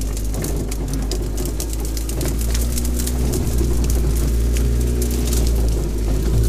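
Suzuki Vitara's engine running steadily at low revs, heard from inside the cab, with revs rising a little after about two seconds. Frequent crackles and scratches of twigs and branches scrape and snap along the body as it pushes through dense scrub.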